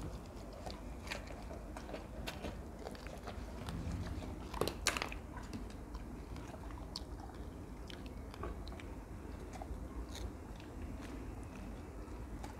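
Dogs biting and chewing pieces of melon: faint, scattered crunching clicks, with a louder couple of bites about five seconds in.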